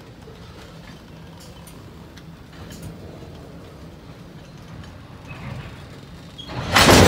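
Freight cars (tank cars and a covered coil car) rolling past on the rails: a steady low rumble with a few faint wheel clicks. Near the end, a sudden loud rush of noise comes in.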